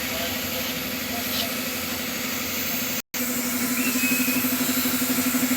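Steady background noise, then after a brief cut about three seconds in, an engine idling with an even pulsing hum that grows slightly louder.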